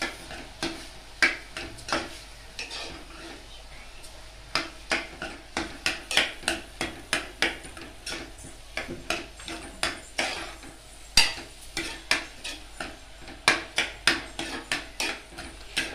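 A metal spoon scrapes and knocks against the inside of a pressure cooker pot while chopped onions and ginger-garlic paste are stirred and sautéed. The sharp strokes come in irregular runs of about two a second, over a faint sizzle of frying.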